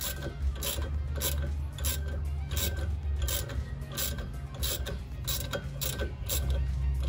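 Hand ratchet wrench clicking as it is swung back and forth in short strokes, about two clicks a second, over a steady low hum. It is screwing a bolt into the brake rotor's threaded jacking hole to force the rusted rotor off the hub.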